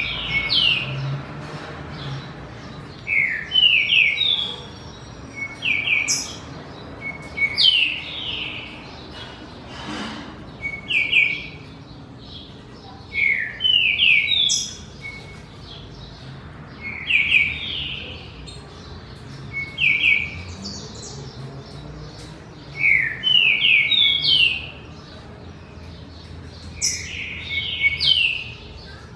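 Songbirds singing short phrases of a few quick, sharp notes, repeated every two to three seconds, the phrases sometimes coming in pairs close together.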